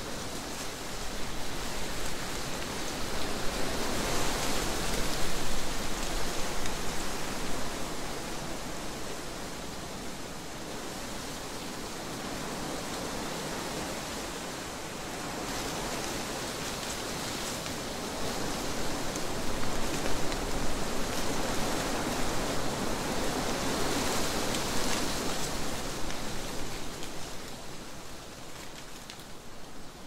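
Wind blowing through trees, a rushing noise that swells in gusts, strongest about four to seven seconds in and again from about nineteen to twenty-six seconds, easing off near the end.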